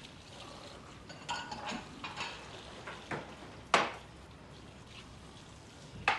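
Light clinks and knocks of tableware: cups and dishes being handled and set down, some with a brief ring. The loudest is a sharp knock a little past halfway, with another just at the end.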